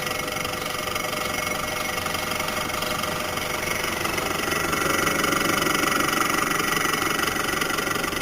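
Kirby refrigeration compressor of a Servex Model 99 fridge running with a steady clattering knock, a little louder in the second half. It doesn't sound healthy: the owner likens the noise to a loose con rod.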